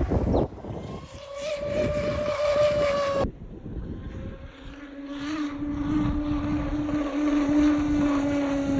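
RC fast electric boat's YPC outboard, driven by an XTeam 3674 2200KV brushless motor on 6S, running at speed: a steady motor whine over hull and spray noise. The whine is higher-pitched for the first three seconds, then lower for the rest.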